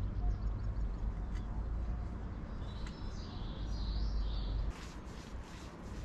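Small birds chirping over a low, steady rumble. The rumble drops away abruptly a little under five seconds in.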